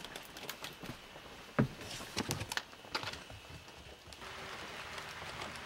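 Rain falling, with scattered drops tapping irregularly and one dull thump about one and a half seconds in. From about four seconds a steady hiss of rain takes over.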